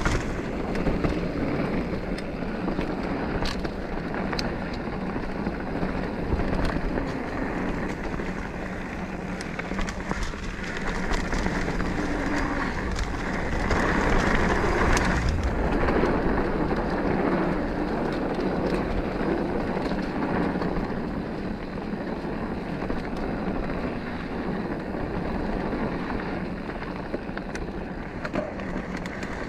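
Mountain bike rolling over rocky singletrack: steady tyre noise on dirt and rock, with scattered clicks and rattles from the bike.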